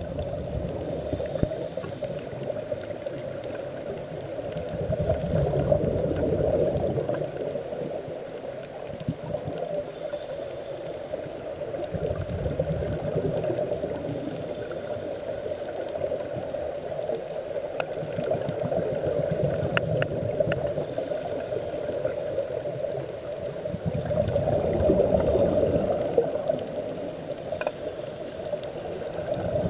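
Underwater sound of scuba divers breathing through their regulators: exhaled bubbles rumble and gurgle in slow swells about every six seconds, over a steady drone.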